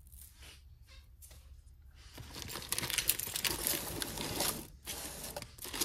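Costume jewelry being rummaged through: a plastic bag crinkling and strands of glass faux-pearl beads clattering. It is faint at first, then turns loud and busy about two seconds in.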